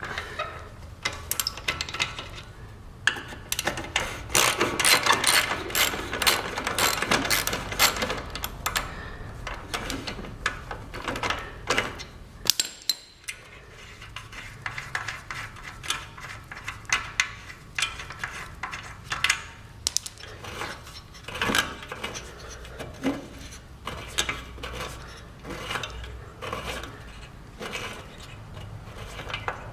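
Hand tools working on a scooter's exhaust mounting as the muffler is unbolted: ratchet wrench clicking and metal clinking and knocking. The clicking is dense for about the first twelve seconds, then turns to scattered clinks and knocks.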